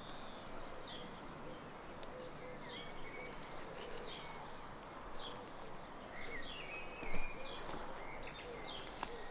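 Small birds chirping and singing repeatedly in short calls over a faint steady outdoor background noise, with one brief louder noise about seven seconds in.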